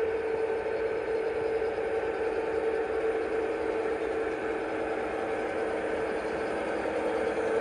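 Several G scale model diesel locomotives pulling a long freight train, running steadily: an even engine-like hum with a strong held tone.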